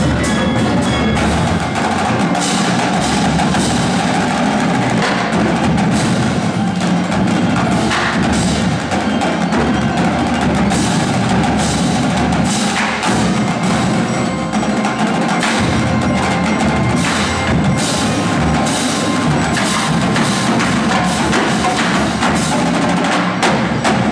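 Indoor marching percussion ensemble playing a loud, busy drum passage. Snare drums, tenor drums and bass drums play over ringing mallet keyboards.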